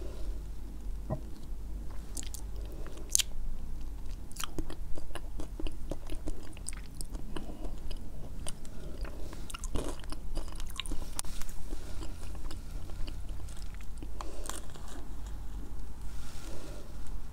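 Close-miked chewing of crunchy arare rice-cracker bits from a frappuccino's whipped-cream topping, with many sharp, crisp crunches scattered through it.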